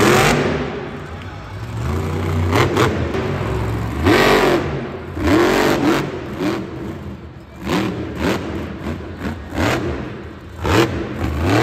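Monster truck's supercharged V8 engine revving hard in repeated surges. Its pitch climbs and falls again and again as the truck is throttled through wheelie stunts.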